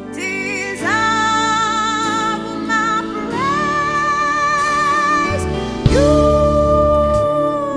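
Slow worship music: a voice holds three long wordless notes, each sliding up into pitch, over sustained chords.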